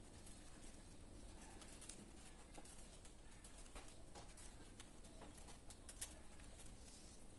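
Faint, scattered clicks and taps of a screwdriver working at the plastic circuit breakers and terminal screws of a distribution board, over a low room hum.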